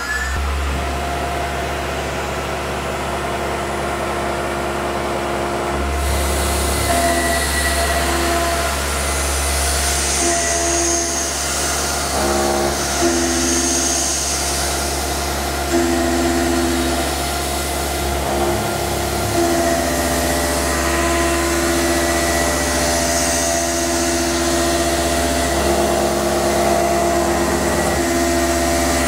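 Tormach PCNC 1100 mill spindle running a 1/4-inch four-flute carbide end mill through a steel part: a steady machine hum with several cutting tones that switch on and off as the tool moves through the cut. A high hiss joins about six seconds in.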